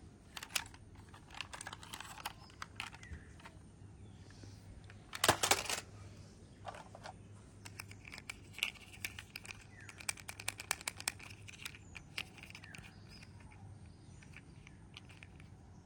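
Small plastic toy vehicles clicking and rattling as they are handled, a run of light irregular ticks with a louder clatter about five seconds in.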